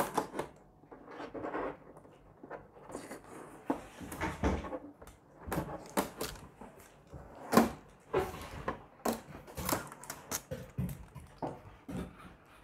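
Hands handling the plastic casing and covers of a new air purifier: irregular plastic clicks, knocks and rustles, with a sharp click right at the start and the loudest knock about seven and a half seconds in.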